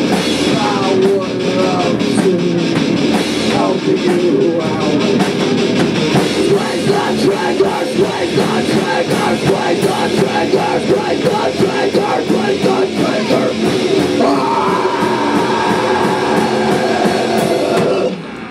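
Live punk/doom rock band playing loud: distorted electric guitar, bass and drum kit pounding a steady beat, with shouted singing in the first few seconds. About fourteen seconds in a held high tone rises over the band, and the sound drops away right at the end.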